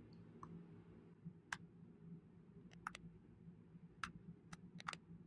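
Faint, scattered keystrokes on a computer keyboard: a handful of isolated clicks at irregular intervals over a low steady hum.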